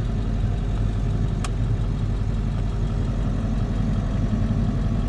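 Pickup truck's engine running at a steady low hum, heard from inside the cab, with a single faint click about a second and a half in.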